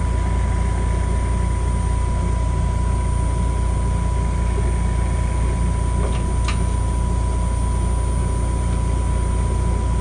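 Wood lathe running steadily with a bowl spinning on it: a constant low motor hum with a thin steady tone above it, and two light clicks about six seconds in.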